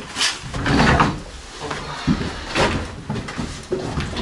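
Old wooden furniture parts being knocked and scraped as they are handled and shifted across the floor, with several knocks, loudest about a second in.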